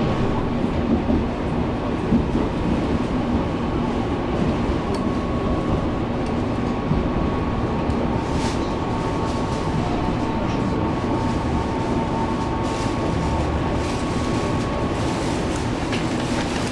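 An EMU700 electric commuter train running, heard from inside the passenger car: a steady rumble of wheels on the rails with a faint high whine that stops near the end.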